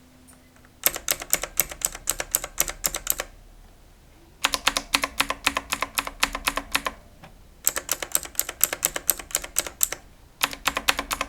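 Escape key of blue-switch mechanical keyboards (Cosmic Byte GK03 and Redgear MK881) pressed over and over in four quick runs of sharp clicks, several a second. The boards are being compared: the Cosmic Byte gives a duller "khut" sound, while the Redgear gives a more vibrant, clicky sound.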